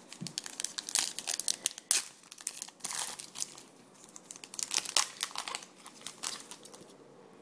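A foil trading-card pack wrapper being torn open and crinkled by hand, in two spells of crackling with a short lull between.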